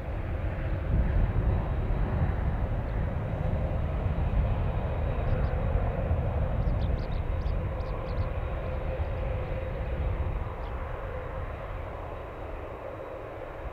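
Jet airliner engines running at a distance, a steady low rumble with a hum above it, from a Boeing 767 taxiing in to arrive. The sound eases off a little in the last few seconds, and a few faint high chirps come in the middle.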